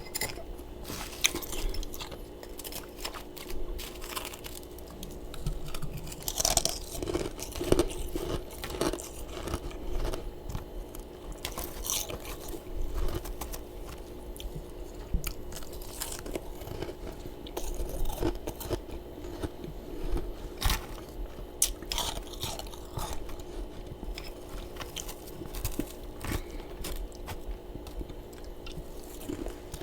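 Close-up chewing and crunching of mouthfuls of freezer frost, irregular crisp crunches one after another. A steady low hum runs underneath.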